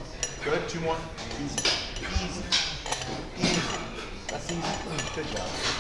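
Several sharp metal clinks and clanks of dumbbells and weight plates knocking together, over faint background voices.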